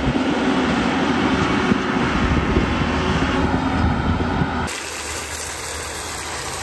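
Tractor engine running steadily as the tractor drives with its rotary cutter. About two-thirds of the way in it cuts abruptly to the steady hiss of a garden hose spraying water onto the radiator screen, washing out the dust that was clogging it.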